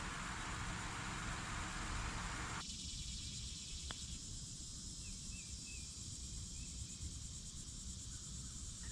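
Steady outdoor rumble and hiss that drops abruptly to a quieter background of faint insects about two and a half seconds in. A little later comes a single sharp click of a putter striking a golf ball, followed by a few faint short chirps.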